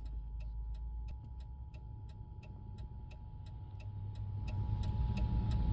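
Emergency Alert System attention signal: the steady two-tone EAS alert tone (853 and 960 Hz together), held without a break, heralding a tornado warning. Under it are a low rumble that grows toward the end and a rapid, even ticking.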